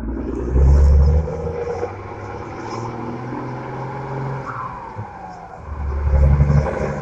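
Mercedes-Benz 1313 truck's turbo diesel engine pulling up the street, with two loud surges under throttle, about half a second in and again near the end. Between them, while it eases off, a whistle from the turbo, made by the comb fitted in its intake, falls in pitch.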